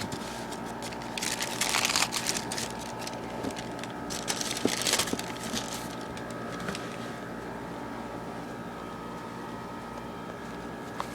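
Packaging crinkling and rustling as it is handled, in two bursts, about a second in and again near the middle, over a steady low hum.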